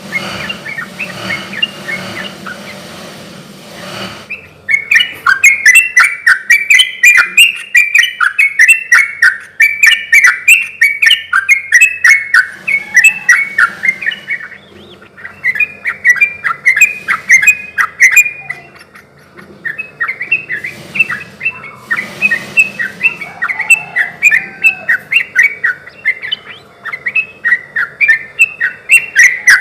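Yellow-vented bulbul (trucukan) singing loudly in long bouts of rapid, chattering notes, with two short breaks. It is the lively, full song that bird keepers play to set other trucukan singing. Before the first bout there is a softer stretch of a few seconds.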